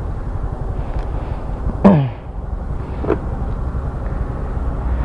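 Motorcycle engine idling with a steady low rumble of street traffic around it. About two seconds in, a brief loud sound drops sharply in pitch, with a smaller one a second later.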